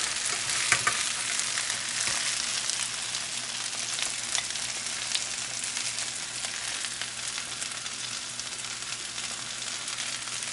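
Sliced yellow squash sizzling in hot oil in a skillet, a steady frying hiss that slowly fades, with a couple of sharp clicks of the spatula against the pan near the start as the squash is lifted out.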